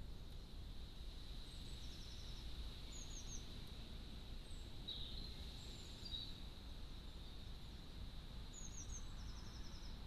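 Faint songbird calls: scattered short high chirps and a few quick trills, heard twice in short runs, over a steady low outdoor rumble and a thin steady high whine.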